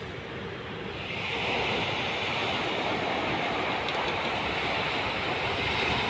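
Surf washing onto a sandy beach: a steady rushing noise that swells about a second in, with a faint low hum underneath.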